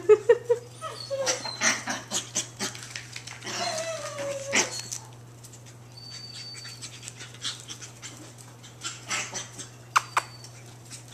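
Two Chihuahua puppies playing: short high yips at the start, a brief whining call a few seconds in, and more small yips near the end, among many quick scrabbling taps on the tile floor.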